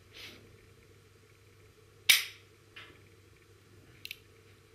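A single sharp click from a revolver about two seconds in, the loudest sound, dying away quickly. A few faint short rustles come before and after it.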